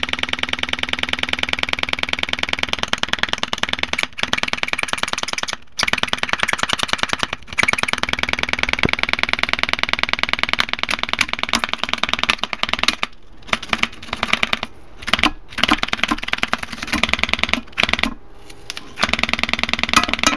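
Badly damaged Crescendo mid-bass speaker, its cone and surround cut and torn, driven hard with a clipped very-low test tone: a harsh, rapid rattling buzz. It cuts out briefly several times.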